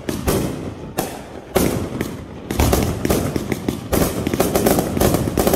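Aerial fireworks going off: a few sharp separate bangs, then from about halfway a dense, rapid crackling as the crackling bursts break overhead.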